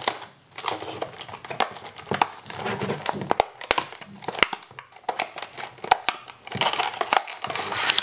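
Clear plastic earphone packaging being opened and handled, crinkling and crackling, with irregular sharp clicks as the plastic flexes and snaps.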